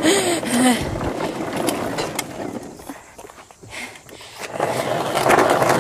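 Plastic wheels of a toy ride-on car rolling over rough asphalt, a gritty rumble that eases off about halfway through and picks up again near the end. A brief hummed tune is heard at the very start.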